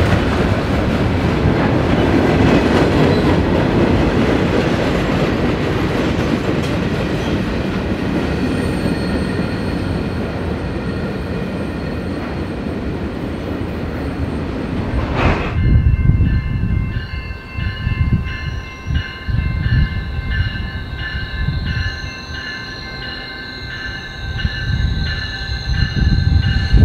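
A train running past with a dense, steady rumble of wheels on rail. About halfway through, the sound changes abruptly to a quieter scene: several steady, slightly wavering high tones over irregular low thumps.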